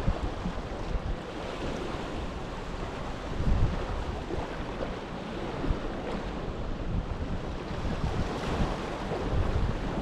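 Baltic Sea waves washing against the shore, with wind gusting on the microphone in low rumbles, strongest about three and a half seconds in and near the end.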